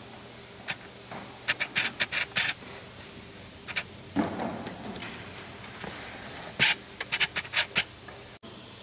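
Short sharp clicks and clinks in quick clusters, with a brief scrape about four seconds in: metal tools and parts being handled during suspension work.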